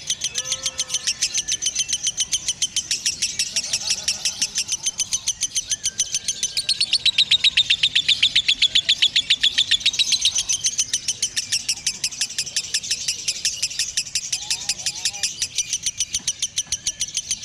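Lovebird chattering in a long, unbroken string of rapid shrill chirps, louder in the middle: the continuous 'konslet' chatter prized in lovebird song contests.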